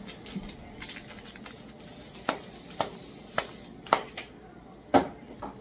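A handful of sharp kitchen knocks and clicks, about five in three seconds, each ringing briefly; the last, about five seconds in, is the loudest.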